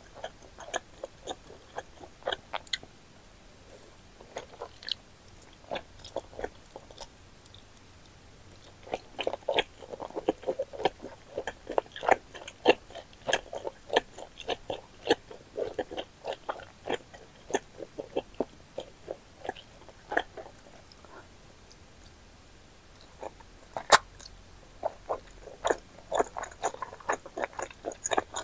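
Close-miked chewing of chewy wide starch noodles (wide Chinese glass noodles and bunmoja) in Buldak hot sauce: quick runs of wet, sticky mouth clicks and smacks. There are two short pauses, and one sharp click comes near the end.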